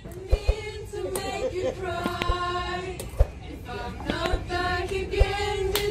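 A group of people singing together in a tram carriage, male and female voices holding notes, with a few sharp clicks scattered through.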